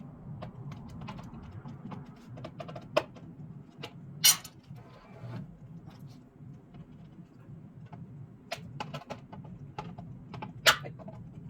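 Irregular light clicks and metallic ticks of steel MIG welding wire being worked back onto a spool, with three sharper clacks, the loudest about four seconds in and again near the end. A steady low hum runs underneath.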